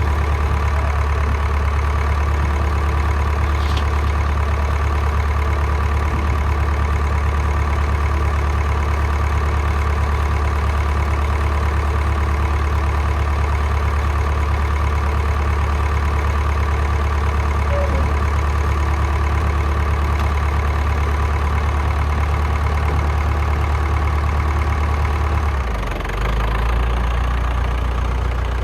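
Farm tractor engine running steadily, with a deep hum. The engine note shifts slightly lower near the end.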